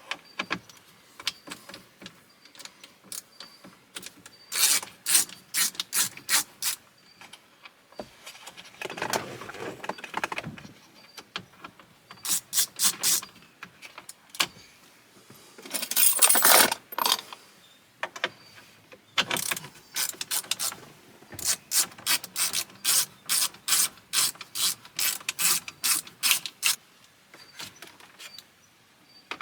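A ratchet clicking in quick runs as the screws holding the radio in the dash are backed out, with short pauses between runs.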